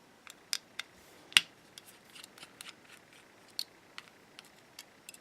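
Scattered small clicks and taps from taking apart a bike computer's plastic case and circuit board with a small screwdriver, about a dozen irregular ticks with one sharper click about a second and a half in.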